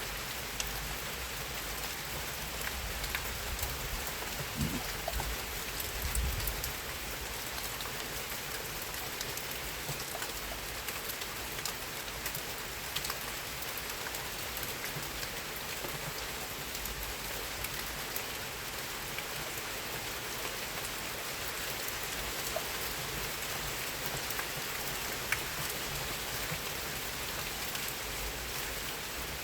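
Steady rain falling, with many individual drops ticking on a surface.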